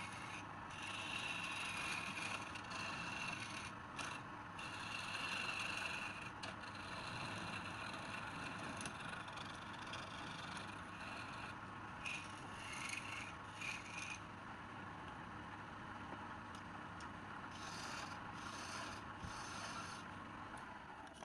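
Steady hiss of a tool scraping spinning wood on a wood lathe, the bright scraping coming and going as the tool is pressed on and lifted off, then easing for a few seconds before returning near the end.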